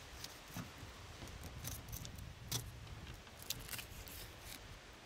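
Fillet knife cutting along the back of a scaly sheepshead, making faint scattered clicks and crackles as the blade goes through the tough scales and skin.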